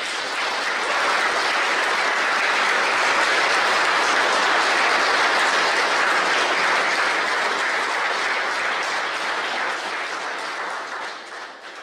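A room full of people applauding at the kick stage separation. The clapping swells in the first second, holds steady, and dies away near the end.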